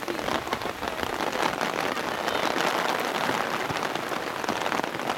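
Rain falling steadily, with a dense run of irregular drop ticks close to the microphone.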